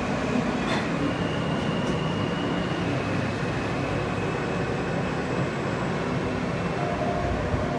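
New York City Subway J train running, heard from inside the car: a steady rumble with a faint, steady high whine.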